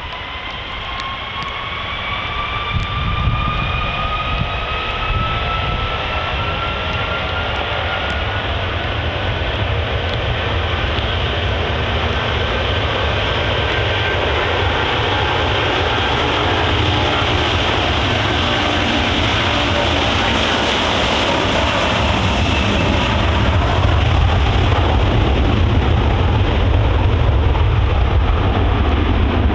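Airbus A330 airliner's twin Rolls-Royce Trent 700 jet engines spooling up to take-off power on a wet runway. A whine rises in pitch over the first several seconds, then a deep rumble builds and grows steadily louder as the jet accelerates down the runway.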